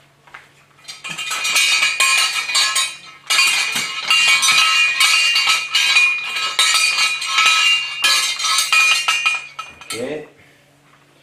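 A metal fireplace tool set shaken on its stand, the hanging tools clattering and ringing against each other without a break. It starts about a second in and stops about ten seconds in.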